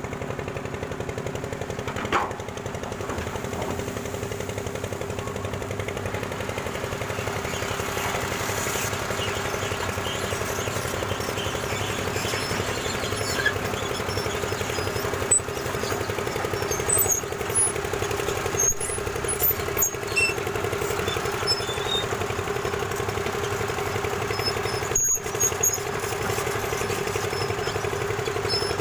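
Excavator's diesel engine running steadily, with occasional short metallic clanks.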